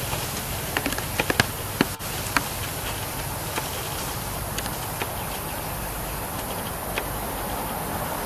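Insects calling steadily in tree foliage, with a run of sharp clicks and snaps in the first two or so seconds.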